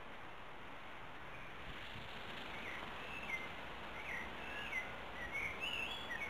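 Small songbird chirping: a run of short, quick calls starting about two and a half seconds in, over a steady background hiss.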